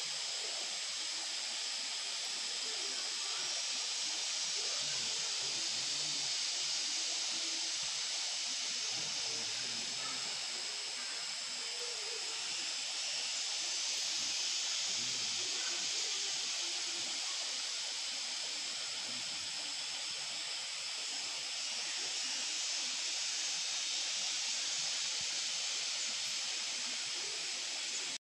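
Steady high-pitched hiss of outdoor background noise, even throughout with no distinct events.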